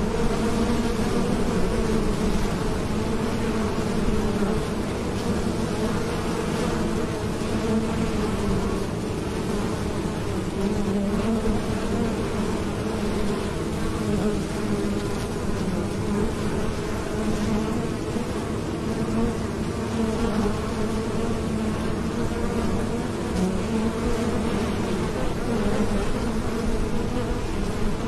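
Many honeybees flying in and out at a hive entrance: a steady, dense buzzing hum with several wavering pitches as bees pass close by.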